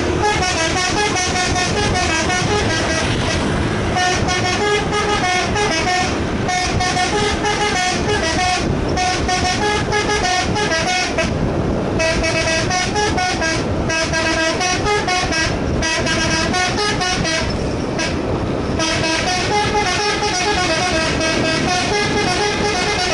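Indonesian bus 'telolet' basuri air horn playing a melody: short phrases of stepping, pitched horn notes repeated with brief breaks, over a low vehicle rumble.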